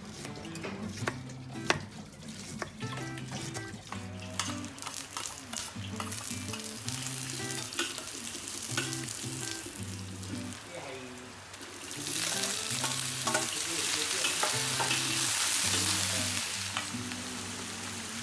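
Knife strokes on a wooden chopping board, then garlic and ginger sizzling in hot oil in a black wok, stirred with a metal spatula. The sizzling grows much louder about two-thirds through, when the wok is full of chopped boiled chicken, over light background music.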